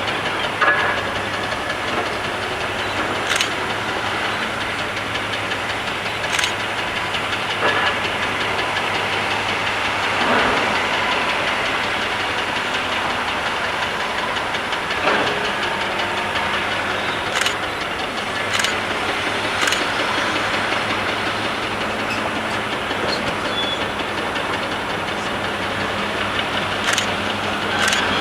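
Komatsu PC1250 hydraulic excavator working: a steady diesel engine and hydraulic noise, with a few sharp metallic knocks here and there.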